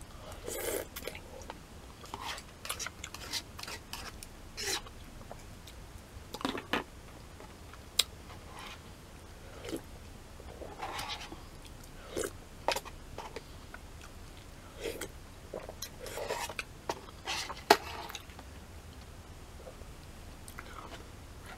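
Close-up mouth sounds of eating udon curry noodle soup: chewing and slurping come in short scattered bursts. A few sharp clicks are also heard, the loudest near the end.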